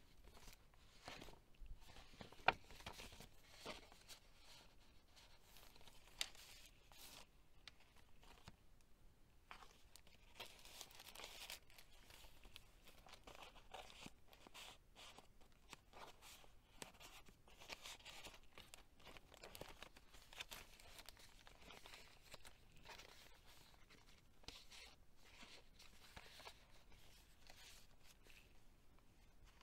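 Faint rustling and sliding of paper as handmade journal pages, tags and flip-ups are turned and handled, with one sharp tick about two and a half seconds in.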